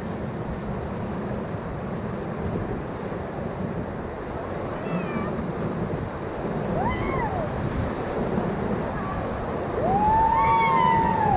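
Steady rush of river rapids, with a few high calls that rise and fall in pitch, the longest and loudest lasting about a second and a half near the end.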